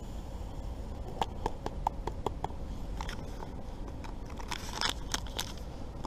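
An instant-coffee sachet being handled and emptied over a wooden cup: a quick run of light clicks and taps, then a short crinkle of the packet near the end.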